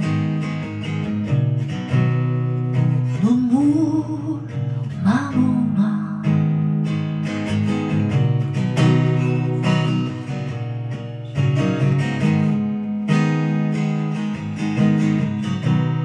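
Acoustic guitar strummed steadily in a slow ballad, chord strokes ringing on between strums.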